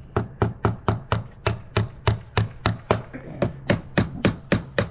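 A hammer striking in a fast, even run of about three to four blows a second, over a faint steady low hum.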